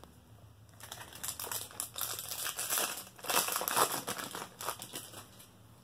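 Crinkling and tearing of a 1991 Traks trading-card pack wrapper being opened: a run of irregular, crackly rustles that starts about a second in and dies away near the end.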